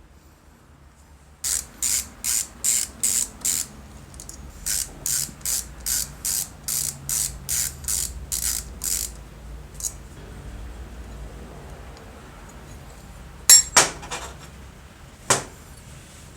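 A hand tool worked on the compressor's metal parts in about fifteen quick, even strokes, about two and a half a second with one short pause, then two sharp metal knocks near the end.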